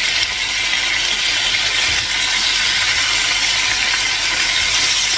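Chicken pieces frying in a pot of hot oil, a steady sizzle as they brown after being turned over.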